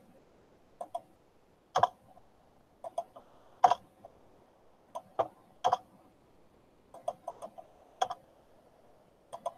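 Computer mouse and keyboard clicks, scattered and irregular, many in quick pairs, from selecting and deleting drawn strokes in a document.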